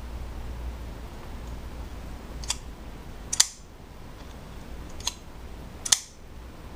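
Boker Kwaiken titanium flipper folding knife being worked twice: each time a light metallic click as the blade closes, then a sharp, loud snap about a second later as it is flipped open and locks.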